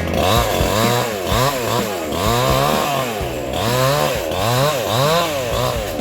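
Chainsaw engine revving up and down over and over, its pitch rising and falling about one and a half times a second.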